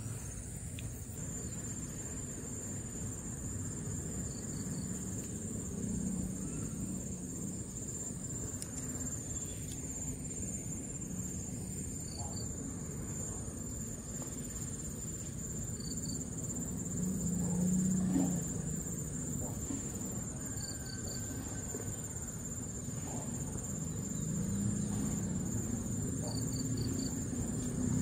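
Insects keeping up a steady high-pitched drone, with short groups of two to four quick high chirps every few seconds. Under it runs a low rumbling background noise that swells briefly a little past the middle.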